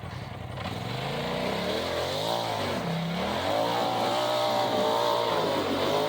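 Side-by-side UTV engine revving up and down over and over, its pitch rising and falling several times as the throttle is worked. It runs lower at first and grows louder from about a second in.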